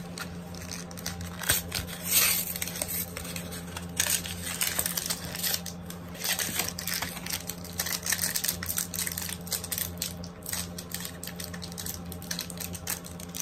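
Foil wrapper of a Pokémon card booster pack crinkling and crackling irregularly as it is torn open by hand, a wrapper that is hard to open.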